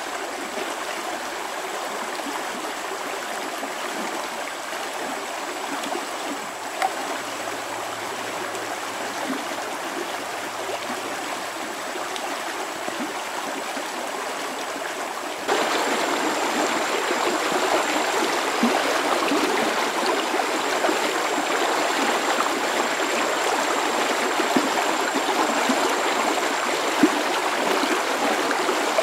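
Shallow stream rushing steadily over rocks, jumping suddenly louder about halfway through. A few faint clicks stand out now and then.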